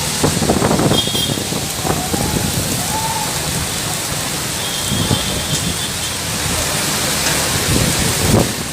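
Heavy monsoon rain pouring down and drumming on surfaces in a steady, dense hiss.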